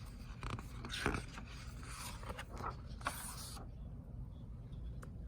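Paper rustling and scraping as a picture book's page is handled and turned, with a few light clicks. It stops about three and a half seconds in.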